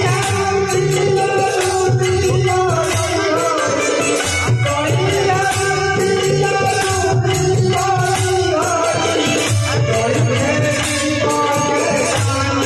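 A man singing a devotional bhajan, accompanied by tabla.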